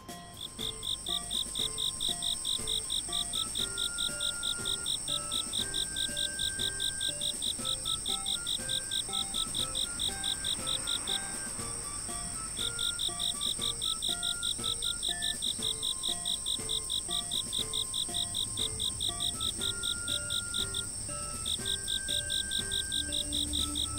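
Crickets chirping at night in a fast, even pulse with a steady high trill above, breaking off twice, over sparse soft music notes; a low held tone enters near the end.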